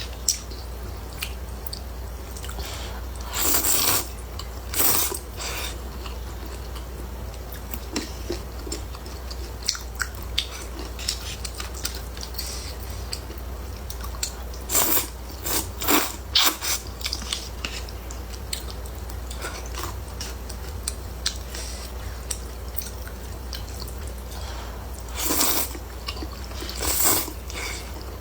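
Close-miked chewing of hot and sour noodles, with small wet mouth clicks throughout and a few louder, noisy bursts of eating sound in short clusters, over a steady low hum.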